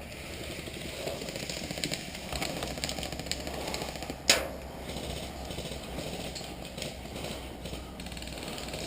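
An airsoft player on the move, his footsteps and gear rustling with scattered small clicks. One sharp crack comes about four seconds in.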